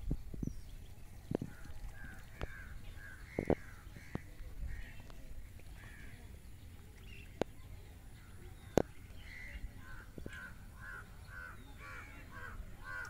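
Crows cawing in runs of short repeated calls, a brief run about two seconds in and a longer one from about ten seconds in, with a few sharp knocks between them.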